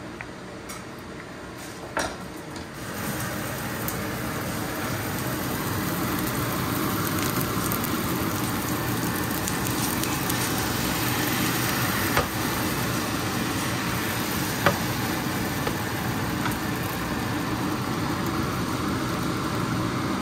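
Hot oil sizzling in a nonstick frying pan as onion slices and then a yellow batter fry in it; the sizzle starts about three seconds in and runs on steadily. A few sharp clicks, likely utensils against the pan, stand out above it.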